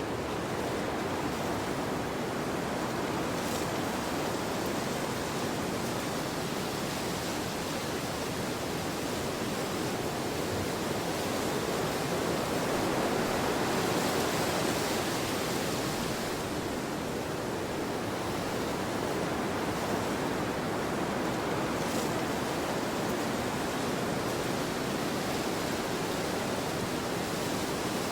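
Steady wind blowing in a snowstorm, an even rushing noise that swells a little about halfway through.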